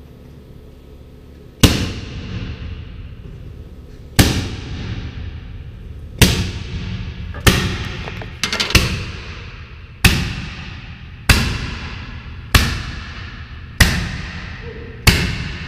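A tennis ball gun firing about ten sharp, loud bangs, the first few seconds apart and then roughly one every second and a half. Each bang rings out and fades over about a second in the large, empty bay.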